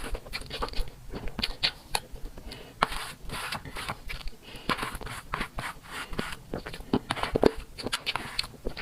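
Cake being eaten: irregular scrapes, clicks and crunches, several times a second, with no steady rhythm.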